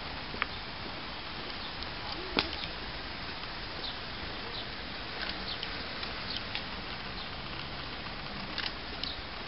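Quiet outdoor ambience: a steady hiss with scattered faint clicks and ticks, one sharper click about two and a half seconds in.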